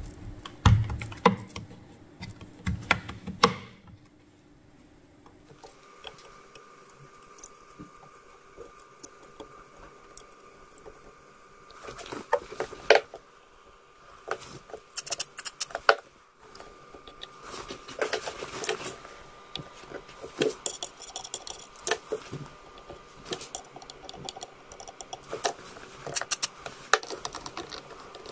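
Close handling noises of bench work on an amplifier chassis: irregular taps, clicks and rubbing as fingers handle a circuit board and a metal plate. There are a few heavier thumps in the first few seconds, and a faint steady tone from about six seconds in.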